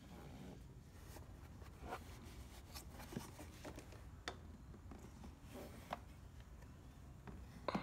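Faint handling sounds: scattered light clicks and knocks of plastic pressure-washer parts being moved by hand, over a low steady room hum.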